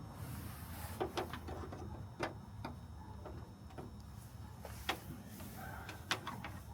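Scattered light clicks and taps of small hardware being handled and fitted: about seven sharp ticks at uneven intervals over a low steady rumble.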